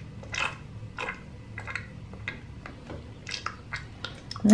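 Soft, irregular sipping and slurping clicks, a few a second, as a toy juice cup is held to a baby doll's mouth for a pretend drink.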